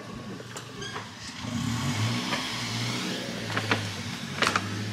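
A car engine running and getting louder about a second and a half in, like a car pulling away. A brief sharp noise comes near the end.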